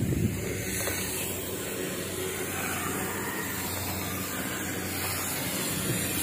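Steady hissing noise with a faint low hum beneath it.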